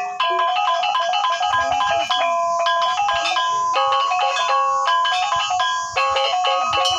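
Sasak gendang beleq ensemble playing: bronze kettle gongs ring out a fast, bright melody of short stepping notes, with sharp metallic strikes throughout.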